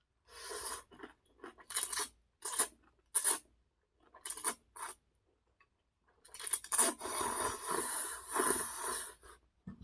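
Ramen noodles being slurped and eaten: several short slurps in the first half, then one long slurp of about three seconds near the end.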